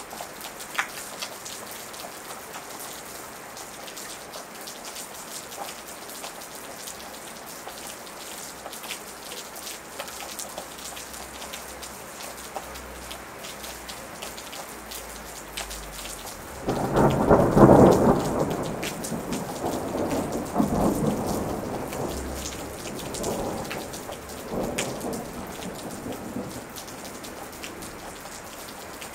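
Steady rain falling, with scattered sharp drops. A little past halfway a thunderclap breaks, then rolls on in several fading rumbles for about ten seconds.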